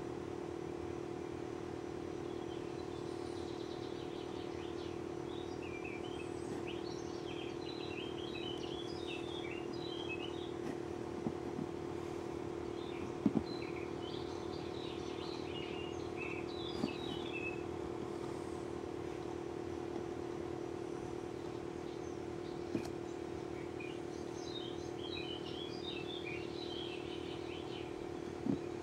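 A steady mechanical hum throughout, with birds chirping in short bursts at several points and a few sharp clicks scattered through, the clicks fitting a computer mouse being clicked as web pages are changed.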